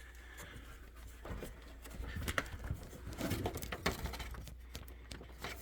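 Scattered light clicks and ticks from plastic control-panel parts of an electric range being handled and pried at.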